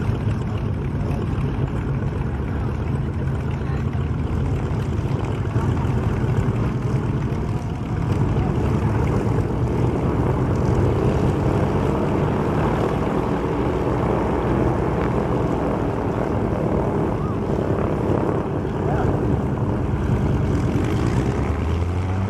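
Twin piston engines of WWII warbirds running at idle on the ground, first a de Havilland Mosquito's, then a B-25 Mitchell's, propellers turning. A steady low engine sound that gets a little louder about eight seconds in.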